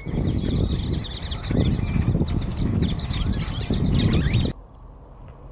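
A large flock of geese calling, many overlapping high, yelping calls over a steady low rumble of wind and water. The sound cuts off abruptly about four and a half seconds in to a much quieter outdoor background.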